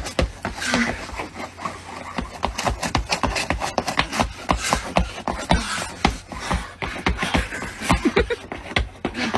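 Shoes scuffing, slapping and stomping on icy pavement as a person slips and struggles to keep his footing, an irregular run of knocks and scrapes.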